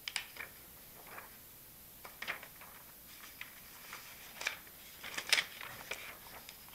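Sheets of paper rustling and crinkling as a printed test page is lifted and turned over: a series of short, irregular crackles, loudest about five seconds in.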